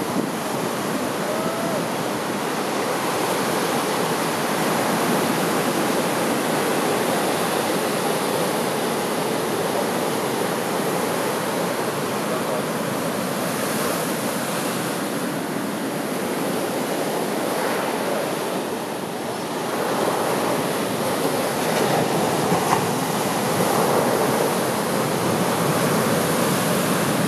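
Heavy storm-swell surf breaking and washing up the beach in a continuous rush of water, swelling and easing as the waves come in.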